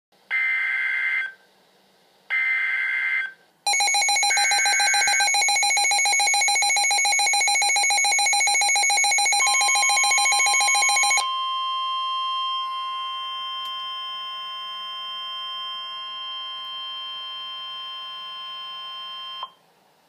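NOAA Weather Radio emergency alert on Midland weather alert radios. First come short screeching bursts of SAME digital header data: two on their own, a third under the start of the radio's rapid pulsing alert beep, which runs for about seven seconds. Then the steady 1050 Hz warning alarm tone holds for about ten seconds and cuts off near the end.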